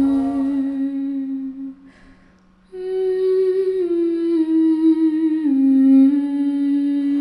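A woman's voice humming a slow melody in long held notes that step up and down. It breaks off a little under two seconds in and starts again about a second later.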